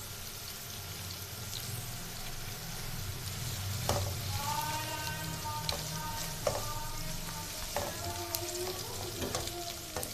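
Sliced onions with chopped garlic and ginger sizzling in hot oil in a nonstick frying pan as they are browned. A plastic spatula stirs them and scrapes and taps against the pan several times from about four seconds in.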